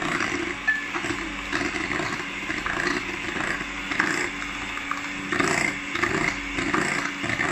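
Electric hand mixer running steadily, its twin beaters whisking a thin cream mixture in a glass bowl.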